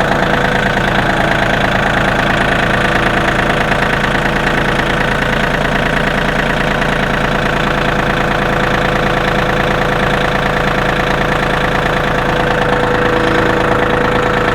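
Engine of a tractor with a loader bucket running steadily at an even speed.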